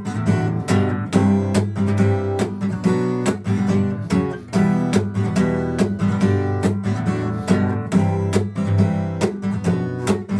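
Acoustic guitar strummed in a steady rhythm of chords, with sharp, regular strokes and no singing.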